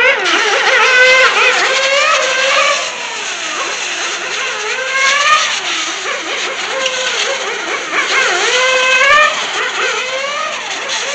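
A 1/8-scale nitro on-road RC car's small glow engine, revving high and dropping off again and again as the car brakes into corners and accelerates out of them. It is loudest in the first few seconds, then a little further off.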